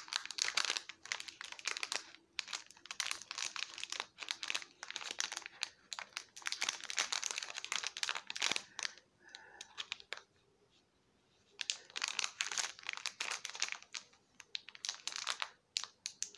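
Clear plastic bag crinkling and crackling in uneven bursts as fingers work at its sealed edge, trying to open it. There is a pause of about a second and a half around ten seconds in.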